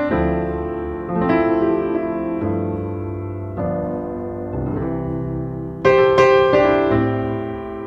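Background piano music: chords struck one after another, each ringing on and fading, with a louder chord about six seconds in.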